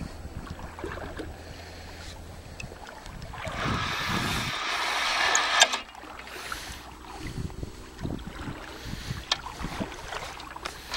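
Wind and handling noise on a hand-held camera while a hooked fish is being reeled in: rustling and small clicks, with a louder rushing noise about three and a half seconds in that lasts about two seconds and cuts off suddenly.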